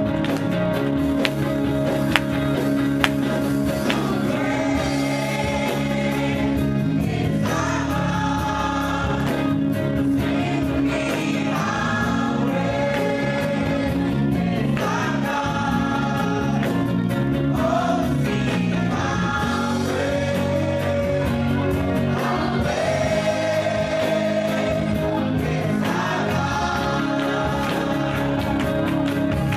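Gospel praise team of mixed male and female voices singing together through microphones, with electric guitar accompaniment.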